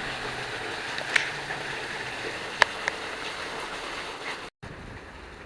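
Steady rush of running water, with two sharp clicks about a second apart near the middle; it breaks off briefly and comes back quieter.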